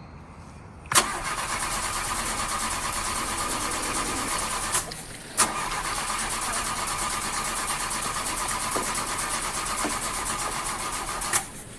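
An engine running steadily, cutting in suddenly about a second in, with a brief break a few seconds later.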